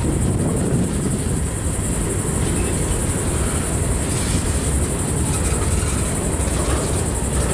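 Freight train's open-top hopper cars rolling past slowly, steel wheels on rail making a steady heavy rumble, with a steady high hiss above it.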